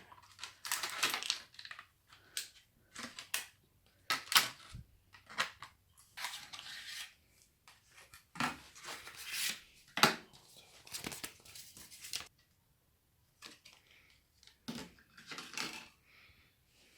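Irregular rustling, scraping and tearing noises from computer parts and their packaging being handled and fitted, in short uneven bursts with a brief pause about two thirds of the way through.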